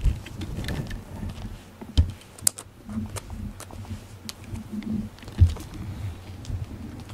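Close handling noise against a cat: a scatter of small clicks and a few sharp low knocks as the cat brushes against the camera.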